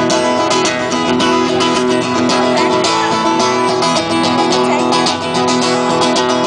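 Live country band playing an instrumental break between vocal lines, with strummed guitar to the fore over a steady beat.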